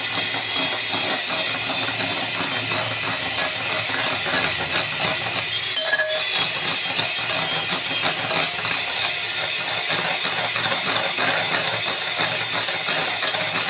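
Electric hand mixer running steadily, its beaters whirring and clinking against a glass bowl as they cream butter, sugar and egg toward a foamy batter.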